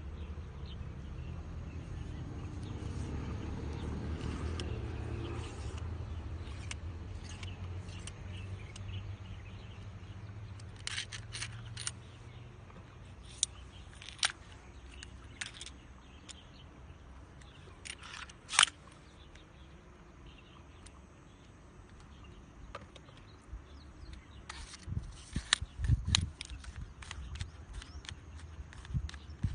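Scattered sharp clicks and knocks of a telescopic fishing rod's sections and plastic tip cover being handled and collapsed, the loudest about two-thirds of the way through. A low rumble sits under the first half and fades.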